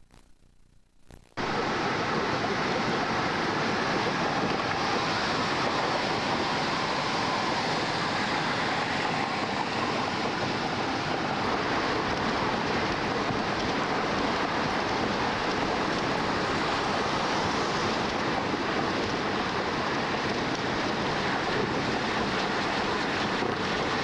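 Steady road and wind noise inside a moving car, cutting in suddenly about a second and a half in after near silence.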